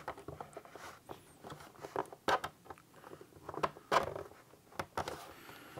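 Small flathead screwdriver scraping and clicking against the seam of a Fleshlight Launch's snap-together plastic case as it is pried along the sides, with several sharp clicks spread through.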